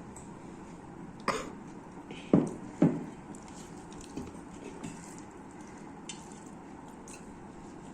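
A person eating coughs three times in quick succession, between about one and three seconds in, the last two the loudest. Small soft eating clicks follow.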